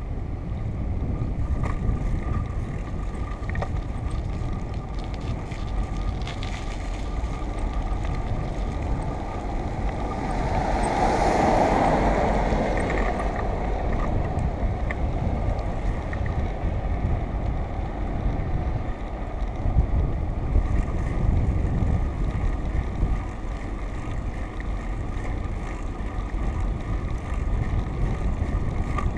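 Steady wind rumble on the microphone of a moving camera, with a swell of louder rushing noise about eleven to thirteen seconds in.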